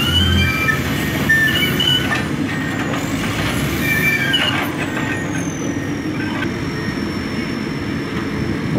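Diesel engines of a Komatsu PC200 crawler excavator and a crawler bulldozer running under load, with short high metallic squeals coming and going throughout.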